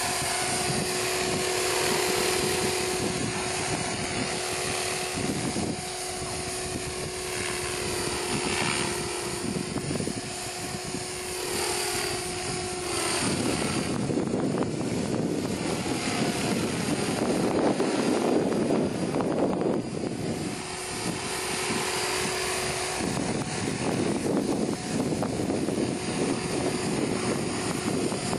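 SJM430 radio-controlled helicopter in flight: a steady pitched hum from its motor and rotor head. Through the middle, and briefly again later, the hum gives way to a louder rushing sound.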